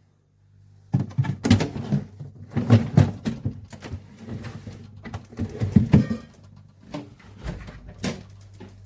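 Irregular knocking and clattering, many sharp clicks and bumps, starting about a second in over a steady low hum.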